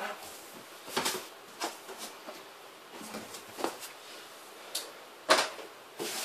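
Cardboard box of a mini fridge being handled and opened: a few separate knocks and scrapes, the loudest about five seconds in.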